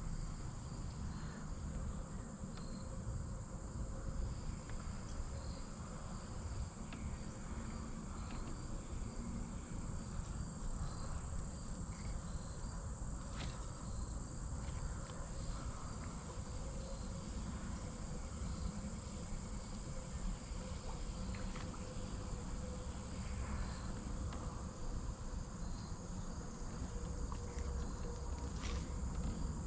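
A steady, high-pitched insect chorus over a low, even rumble, with a few faint clicks.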